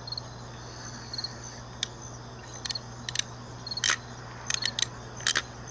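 RJ45 crimping tool clicking sharply several times, in quick pairs and groups, as it crimps a pass-through Ethernet connector onto the cable. Crickets chirp steadily behind.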